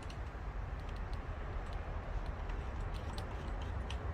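Light, irregular clicks and taps from a shower head and hose being handled, over a steady low hum.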